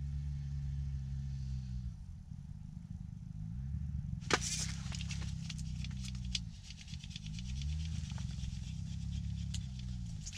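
A spinning reel being cranked to bring up a hooked fish, a fast run of fine clicks, over a steady low rumble. A single sharp clack about four seconds in.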